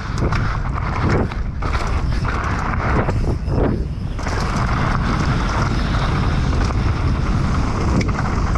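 Wind rushing over the camera microphone and the tyres of a Specialized Demo downhill mountain bike rolling fast on a dirt trail. Over the first few seconds there are clatters and knocks as it hits bumps, then it settles to a steadier rush.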